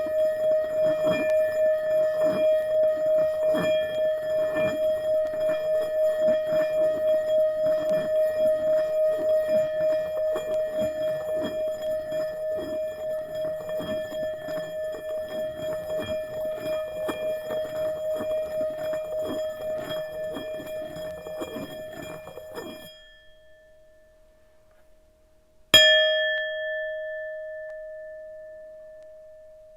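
Metal Tibetan singing bowl sounding one sustained ringing tone with a steady pulsing waver and a faint scratchy texture, as when a wooden mallet is run around its rim; the tone is cut off short near the end. A few seconds later a single wooden-mallet strike on the bowl rings out and slowly fades.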